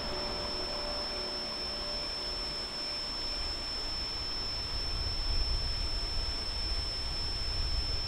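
Steady high-pitched trill of crickets over a low rumble that grows louder and uneven from about five seconds in.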